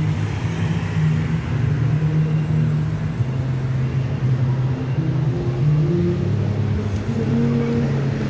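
Road traffic: passing car and vehicle engines with a continuous low rumble that shifts in pitch every second or so.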